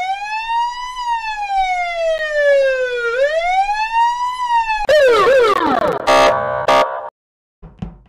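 Police car siren sounding its wail: a tone that climbs, sinks slowly and climbs again. About five seconds in it breaks into quick falling sweeps, then a short loud blare of several steady tones.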